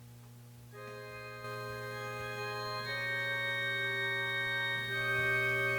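Organ offertory music: slow, held chords that enter about a second in and change every couple of seconds, over a steady low hum.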